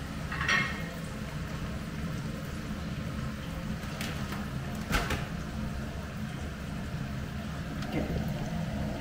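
Frozen fries deep-frying in hot oil on a gas stove, a steady sizzle. A single sharp knock about halfway through.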